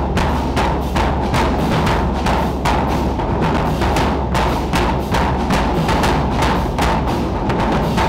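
Marching band drumline playing a marching cadence: a steady pattern of sharp drum strikes, several a second.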